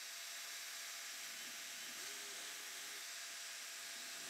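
A steady hiss, with a DeWalt cordless drill faintly spinning up about one and a half seconds in and running at a steady pitch for about a second as it bores a pocket hole through a pocket-hole jig.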